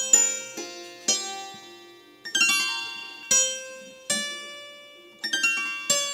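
Đàn tranh (Vietnamese zither) played solo: single plucked notes and short groups of two or three, each ringing out and dying away, at a slow, unhurried pace. Near the end one note is bent slightly downward.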